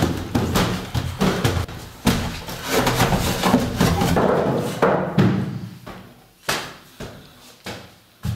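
Hurried footsteps thumping on wooden stairs, mixed with music. The thumps are dense at first and thin out to single knocks about every half second near the end.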